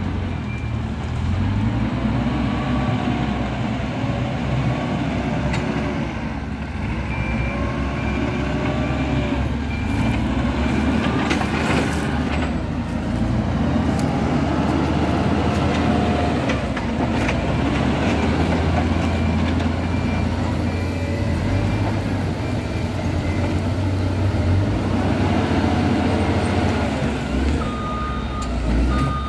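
Diesel engines of heavy earthmoving machines working at a road build, the engine note rising and falling every few seconds under load. A reversing alarm beeps in stretches, and a lower-pitched beep starts near the end.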